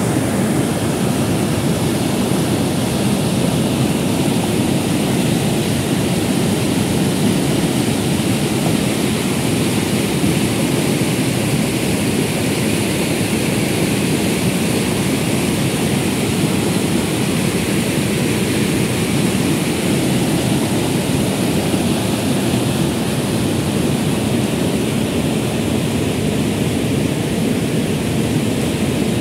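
Fast mountain river rushing over a rocky bed and through small rapids, a loud, steady, unbroken sound of whitewater.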